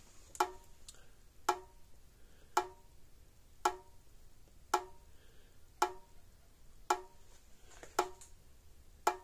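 Hol-Dem Super Power 980 solid-state electric fence charger pulsing: a sharp click with a short ringing tone about once a second, nine in all. The repairer has heard something arcing in the unit and suspects an arc somewhere inside.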